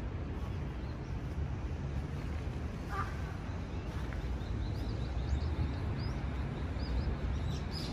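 Small birds chirping, a few high chirps from about halfway through that come more often near the end, over a steady low rumble of background noise.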